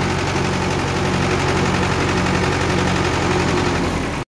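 Mahindra 475 DI tractor's four-cylinder diesel engine running steadily at low speed, with a fast, even pulse.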